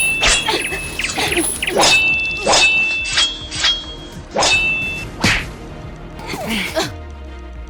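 A quick series of sharp whacks and thuds, about a dozen in the first five seconds, then a few more near the end.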